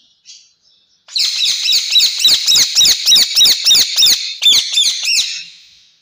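A rose-ringed (Indian ringneck) parakeet gives a loud run of harsh, repeated screeches, about four a second for some four seconds, starting about a second in after a few faint chirps.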